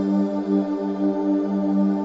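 Background music with steady, held tones that pulse gently.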